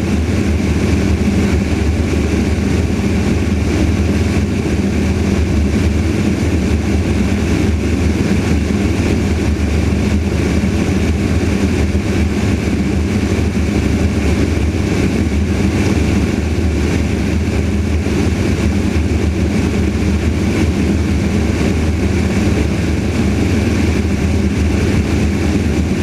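Light propeller aircraft's piston engine droning steadily in cruise flight, with rushing air.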